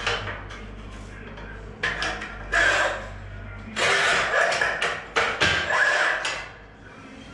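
Manual tile cutter at work on a black tile: clicks and scrapes as the tile is set against the fence, then the scoring wheel rasps across the tile's surface for a couple of seconds. Near the end, the handle is pressed down to break it, and the sound drops off.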